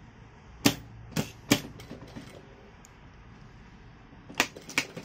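A few sharp clacks at a sewing machine while the fabric is straightened under the presser foot. There are three in the first couple of seconds and two more near the end.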